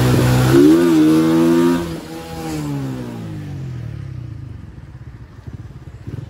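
Small motorcycle engine running steadily, then revving up briefly about half a second in. After that it drops in pitch and loudness over the next two seconds, slowing or moving away.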